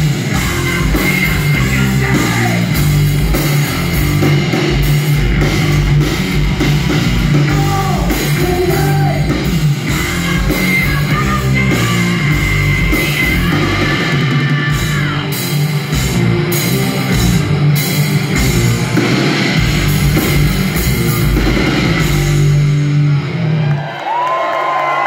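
A live hard rock band plays loudly through a club PA, with a singer over electric bass, guitar and drum kit. The band cuts off near the end, leaving a single voice.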